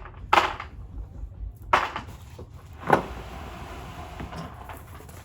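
Three knocks of hard objects, about a second and a bit apart, the last the sharpest, followed by a faint steady hiss.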